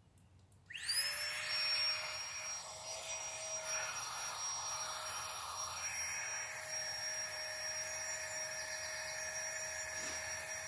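Flextail mini battery air pump switched on about a second in, spinning up and then running at a steady high whine with a rush of blown air.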